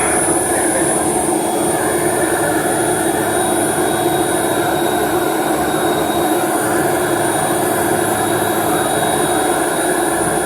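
Heavy drilling-rig machinery running steadily: a loud, even mechanical noise with a thin high whine over it.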